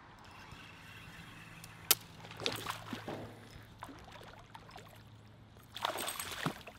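A hooked bass thrashing and splashing at the water's surface as it is reeled in close to shore, with a sharp click about two seconds in, scattered splashes after it, and a bigger burst of splashing near the end.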